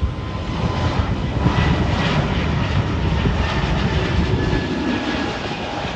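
Airbus A220-100's twin Pratt & Whitney PW1500G geared turbofans at takeoff thrust as the jet lifts off and climbs out: a loud rushing jet noise with a faint steady whine on top, loudest about a second and a half in and slowly easing as the plane climbs away.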